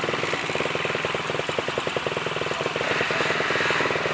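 Dirt bike engine running at low revs with a rapid, even firing beat while the bike is worked through deep mud, with a louder stretch of noise about three seconds in.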